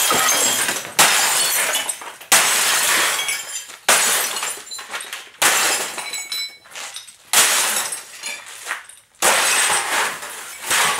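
A Sony Trinitron CRT television being smashed apart: about eight heavy blows at intervals of one to two seconds, each with glass breaking and pieces clattering and tinkling as it dies away.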